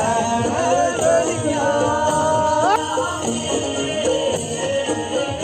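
Music: a Himachali folk-style song, a held melody note sliding up about halfway through, over jingling percussion.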